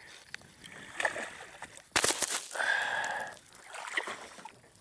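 A hooked bass thrashing and splashing at the surface beside the boat as it is brought in, with a sudden loud burst of splashing about two seconds in.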